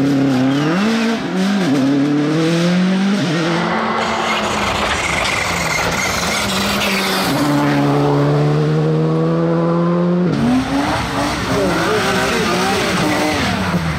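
Rally car engines run hard as the cars pass at speed, their pitch rising and falling with throttle and gear changes: a Subaru Impreza WRC, then a Škoda Fabia R5, then a saloon. The sound changes abruptly twice where the clips cut, and one engine note climbs steadily for about three seconds before cutting off.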